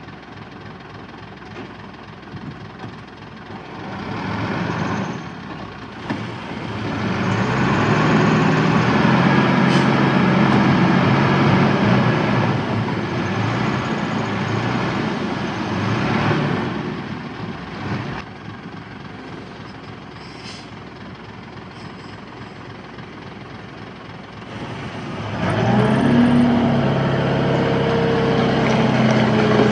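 Diesel engine of working heavy machinery running under varying load: it throttles up about a quarter of the way in, eases back after the middle, and revs up again near the end.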